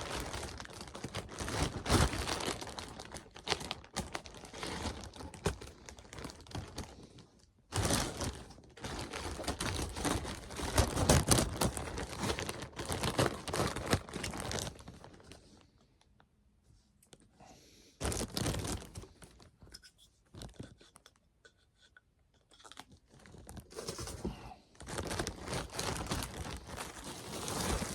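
A clothing parcel being cut open with scissors and its packaging torn and crinkled, in irregular bursts of rustling and tearing with short pauses between them.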